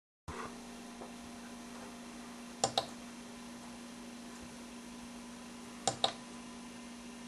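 Steady electrical hum with a constant low tone, broken twice by sharp double clicks about three seconds apart, like a switch or relay being thrown on and then off.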